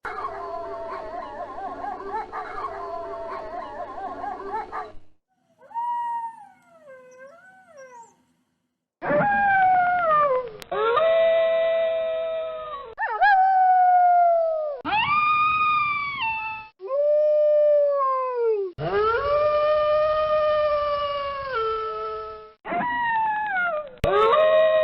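Wolves howling. First a chorus of several overlapping, wavering howls for about five seconds, then a few short yipping calls. After that comes a run of single long howls, each about two seconds, sliding down in pitch and then held steady, each starting and stopping abruptly.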